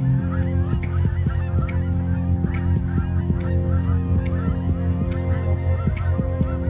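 A flock of geese honking in flight, many calls overlapping continuously, over an electronic music track with steady sustained notes and a regular beat.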